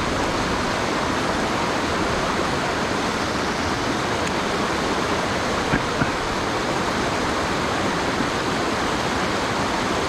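Mountain headwater stream rushing steadily over rocks and a small waterfall into a pool, running high with rain and snowmelt. Two faint ticks come about six seconds in.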